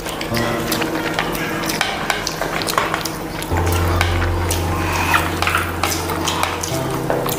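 Close-up eating sounds: fingers mixing rice and fish curry on plates, with many small clicks and taps, over background music with long held bass notes that change every few seconds.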